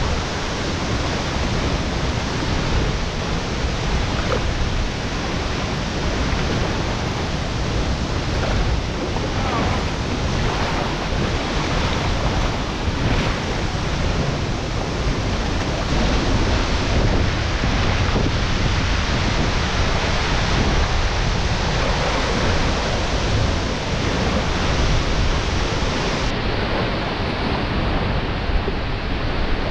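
Steady rush of water: a shallow stream pouring over rock slabs, giving way near the end to a waterfall falling into its plunge pool.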